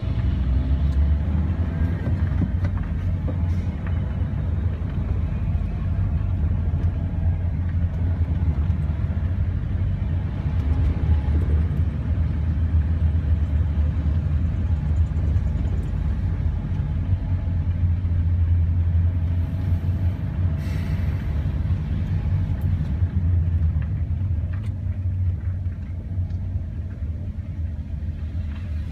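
Car driving slowly through city traffic: a steady low rumble of engine and road noise.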